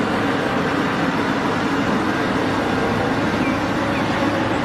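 Heavy excavator engine running steadily, a dense noisy sound with a low hum.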